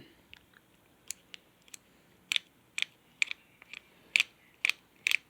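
Dial of a combination padlock being turned, its detents clicking one at a time: a few scattered clicks at first, then about two crisp clicks a second from around two seconds in.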